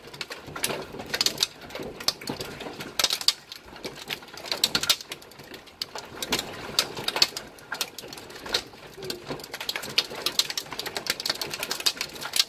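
Hailstones pelting hard surfaces in a dense, irregular patter of sharp clicks and knocks over the hiss of heavy rain.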